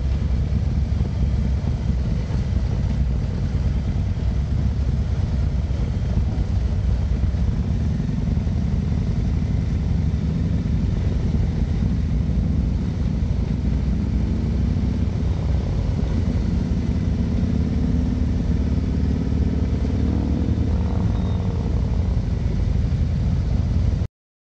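Harley-Davidson touring motorcycle under way, heard through an action camera mounted low beside the front wheel: a steady low rumble of wind on the microphone and V-twin engine. The engine note rises a little in the second half.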